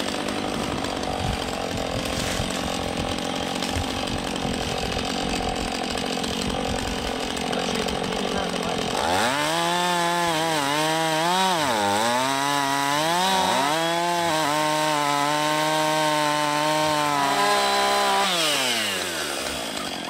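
Two-stroke chainsaw at high revs cutting through a fallen, partly rotted log. From about halfway the engine pitch wavers up and down as the saw works in the cut, then drops near the end as the throttle is let off.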